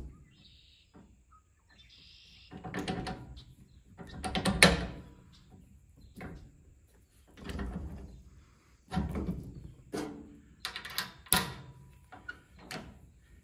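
Irregular metal clanks, knocks and scrapes from a tractor's three-point hitch top link as it is turned out on its threads and handled up to the plow mast, the loudest knock about four and a half seconds in.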